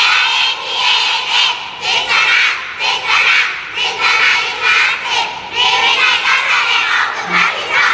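A group of young girls chanting a Thai 'boom' club cheer in unison: loud rhythmic shouted syllables, about two a second.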